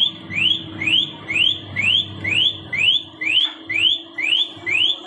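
Car alarm siren sounding a high rising whoop, repeated evenly about twice a second.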